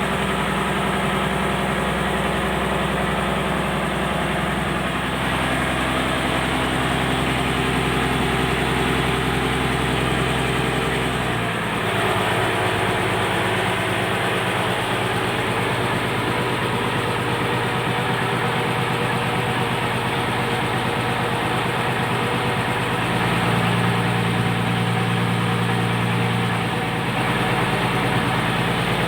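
Engine of a purse seine fishing boat running steadily. About eleven seconds in its note changes, and a stronger low hum swells for a few seconds near the end.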